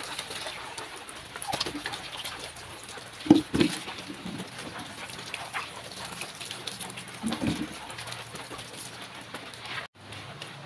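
Water running from an outdoor tap onto a wet concrete floor as lengths of banana stem are rinsed under it. Two pairs of short, sharp sounds stand out, the loudest about three seconds in and the second pair a little after seven seconds.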